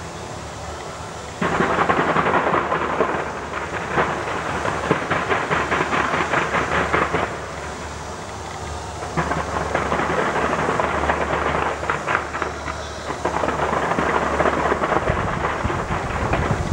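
Large fireworks display going off in dense, rapid volleys of bangs and crackling. It starts suddenly about a second and a half in, eases off for about two seconds midway, then comes back as another long volley.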